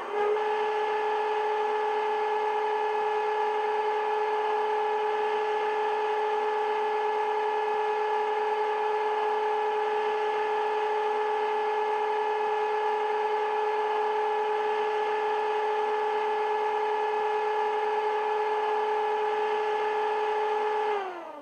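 DCC sound decoder's recording of a Class 37/9's Mirrlees MB275T diesel engine idling steadily, played through the model's small EM2 speaker. Near the end the pitch slides down and the sound fades as the engine winds down to a stop.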